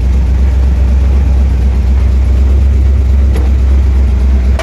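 Truck engine idling with a steady low rumble, and a light click about three and a half seconds in.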